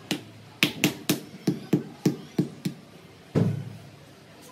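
A freshly laid ceramic parking tile being knocked down into wet cement mortar to bed it level: about nine quick, sharp knocks, roughly three a second, then one heavier thump a little after three seconds.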